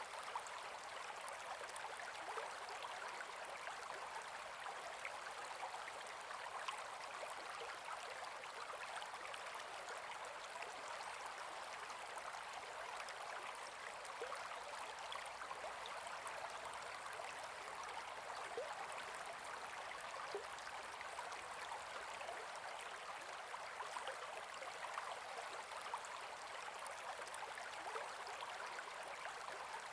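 Gentle forest river flowing over stones: a steady babble of water with little low rumble, flecked with small splashes and trickles.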